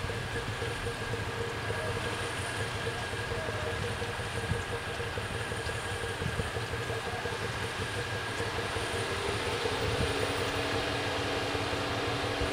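ALn 501 diesel railcar approaching the level crossing, heard as a steady running noise with a held tone. About ten seconds in it gets a little louder and a lower hum joins in as it nears.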